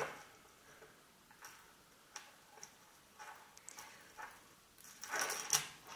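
Faint, scattered small clicks of a metal jump ring and fine chain being handled by fingers, about six ticks spread over a few seconds, with louder rustling handling noise near the end.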